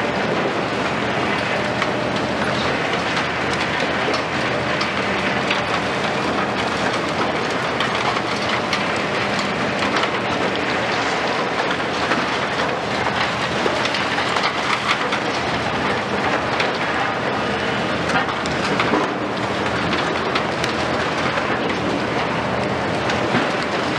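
Diesel engines of two high-reach demolition excavators, a Liebherr 974 and a Hitachi 870, running steadily. Over them comes a continuous crackle and clatter of concrete debris breaking and falling as their tools crunch into the building.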